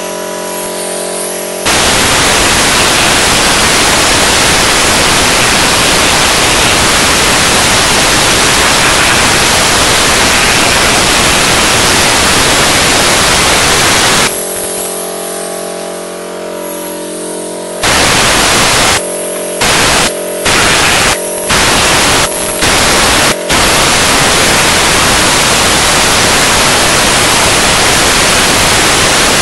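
Compressed-air cleaning spray gun with a red siphon bottle blasting cleaning fluid: a loud, steady hiss that stops for a few seconds about halfway through, then comes back in several short blasts before running on steadily. In the pause a steady machine hum shows underneath.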